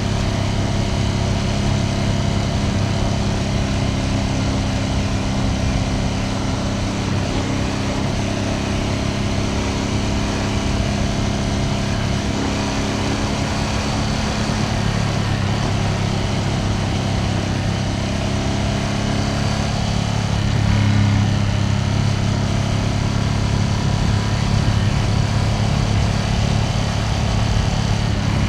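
Ducati Panigale V2S twin-cylinder engine running at a steady, moderate speed while the motorcycle cruises, with a slight swell in loudness about two-thirds of the way through.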